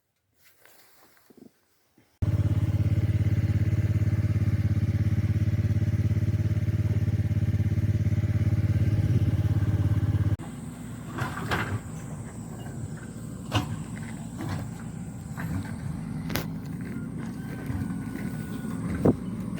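A motor engine running steadily and loudly for about eight seconds, starting and stopping abruptly. After it come quieter outdoor noise and a few sharp knocks and clicks.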